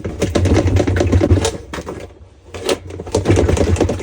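Metal pry hooks being worked under a stuck washing-machine wash plate, a rapid metallic clicking and clattering in two bursts of about two seconds each.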